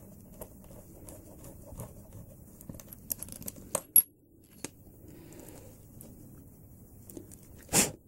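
Small metal tools and brass fusee parts handled on a bench: light clicks and scrapes as a pin vise drill is worked and lifted out, a sharp metallic clink about four seconds in, and a louder knock near the end.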